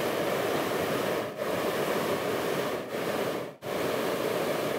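Hot air balloon's propane burner firing: a loud, steady rushing roar that breaks off briefly several times as the burner is cycled.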